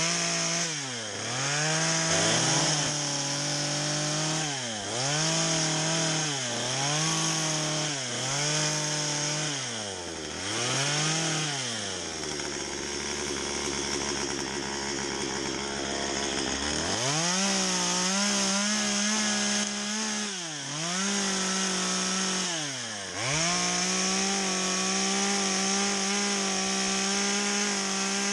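Stihl two-stroke chainsaw with a carving bar cutting into a log. Its revs drop and climb back again and again, about once a second. About halfway it falls to idle for several seconds, then runs at high revs again with a couple more dips before holding steady near the end.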